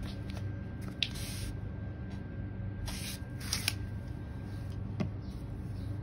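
An applicator being rubbed over plastic car trim, working in plastic restorer: short brushing strokes about a second in and again around three seconds, and a click near five seconds, over a steady low hum.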